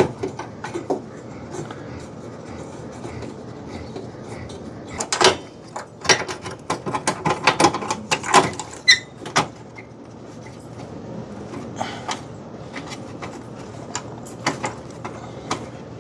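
Scattered small clicks and light metal rattles of a stubby Phillips screwdriver working a small screw out of a controller board's mounting, with a busy flurry of clicks from about five to nine seconds in.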